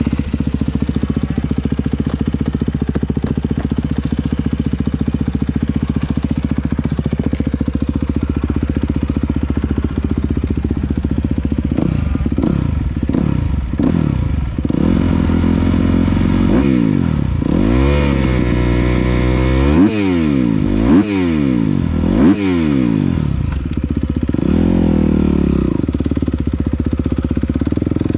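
Dirt bike engine idling steadily, then from about twelve seconds in revving up and down in a series of rising and falling sweeps as the bike pulls away and accelerates.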